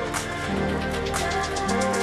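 Background music: held chords and bass notes over a steady beat.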